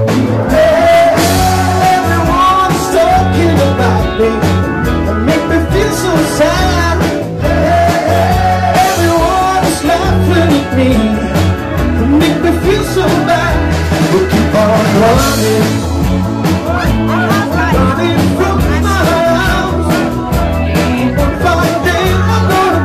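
Live rock band playing loud: electric guitars, bass and a drum kit keeping a steady beat, with a male singer's voice over them.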